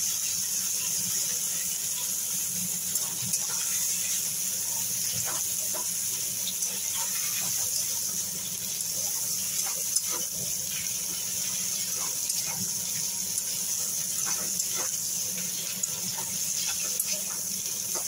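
Cut papaya, potato and green banana sizzling steadily in hot mustard oil in a kadai, with a metal spatula now and then clinking and scraping against the pan as they are stirred.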